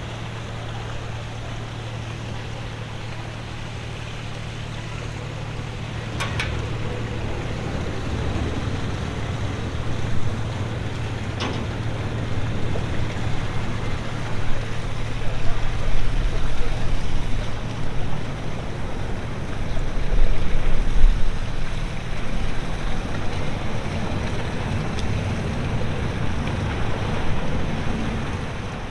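Passenger boat under way on a lake: a steady low engine hum under rushing water and wind, growing louder partway through, with a couple of faint clicks.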